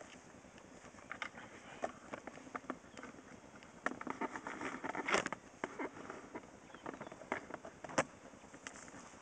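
Scattered light clicks and rustling, with a denser patch of rustling about four to five seconds in. No engine is running yet.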